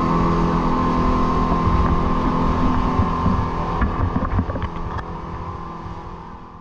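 Motorboat running at speed, a steady engine drone mixed with rushing wind and water, heard from aboard. It fades out over the last couple of seconds.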